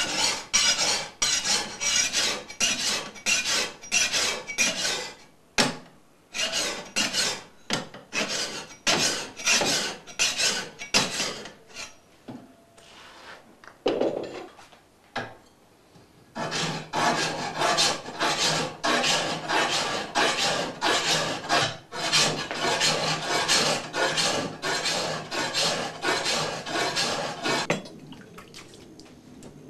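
Hand file rasping along the steel of a katana blade in repeated strokes, a few a second: the rough filing that sets the blade's shape. The strokes pause for a few seconds about 12 s in, start again, and stop near the end.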